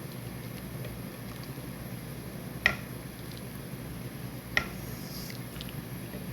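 A pot of chicken baeksuk boiling on the stove: a steady low rumble and hiss, broken by two sharp, briefly ringing clinks of kitchenware about two seconds apart.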